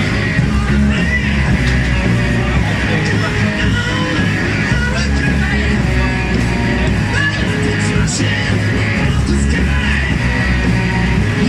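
Rock music with singing and guitar, at a steady loud level.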